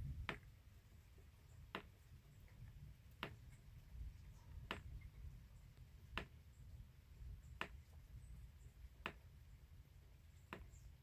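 Faint sharp ticks, one about every second and a half, evenly spaced, over a low rumble.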